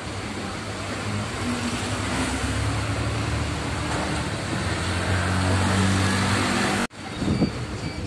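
Bus engine running with road noise, heard from inside the cabin of the moving bus. The sound breaks off briefly near the end and comes back with a knock.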